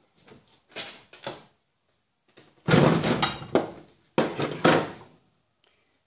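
Worn-out rubber shaft seal being pried out of a washing machine's aluminium base: a few light scrapes and clicks, then two loud, rough scraping bursts, each about a second long, as the seal works free.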